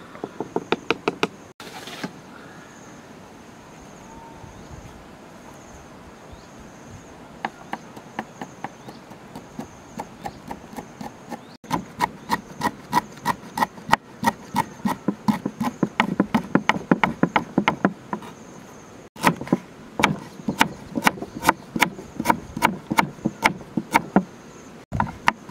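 Cleaver chopping fast on a wooden cutting board, slicing herbs and root, in several runs of quick even strokes about four or five a second. A steady high insect trill runs underneath.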